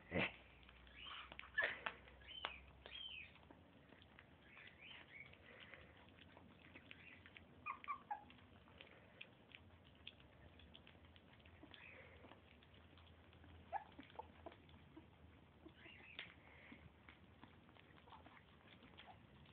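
Pit bull–Lhasa Apso mix puppies making a few faint, short squeaks and whimpers that fall in pitch, with scattered small clicks in between.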